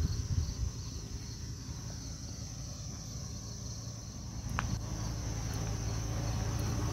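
A steady high-pitched chorus of insects chirring, over a low steady rumble.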